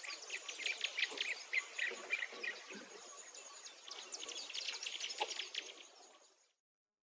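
Birds chirping in quick repeated calls over a faint outdoor hiss, with a thin steady high tone like an insect; the sound fades out about six and a half seconds in.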